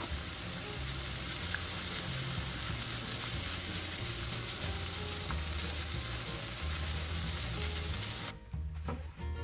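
Chopped cabbage and carrot sizzling in a hot frying pan as a wooden spoon stirs them through with ketchup. The sizzle cuts off suddenly about eight seconds in, leaving quiet background music.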